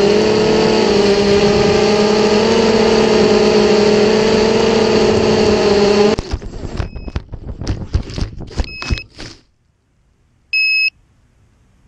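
Racing quadcopter's brushless motors and propellers running with a steady whine, cut off suddenly about six seconds in as it crashes into tall grass. Knocks and rustling follow for about three seconds with a couple of short beeps. Then, after a pause, the quad's buzzer gives a single high beep.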